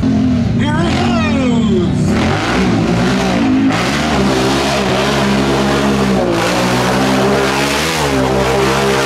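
ATV engine revving hard as the quad drives through a mud hole. The engine's pitch drops over the first couple of seconds, then holds high with brief dips and climbs, over a steady hiss.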